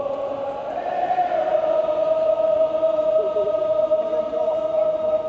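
Football supporters in the stands singing a chant together in long held notes that shift up in pitch about a second in.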